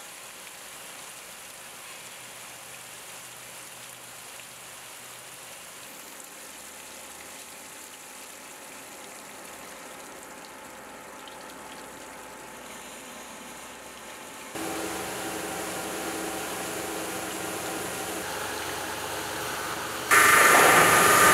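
Water-cooled cutting machinery: first a faint, steady rush of coolant water. About fifteen seconds in, a louder machine hum with steady tones starts. Near the end it switches abruptly to a much louder, whining run of the Hoyun600's spindles grinding a foamed ceramic block with diamond wheels.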